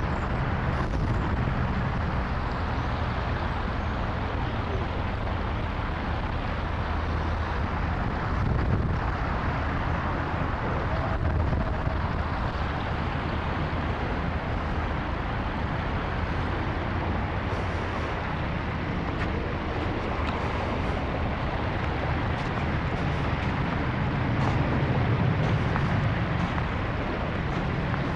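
Steady wind rumbling and buffeting on the microphone, rising a little in strength now and then.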